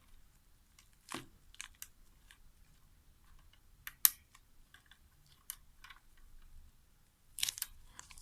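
Scattered plastic clicks and taps from handling the Intel stock CPU cooler's push-pins as they are pressed into the motherboard and turned to lock, with one sharp click about four seconds in.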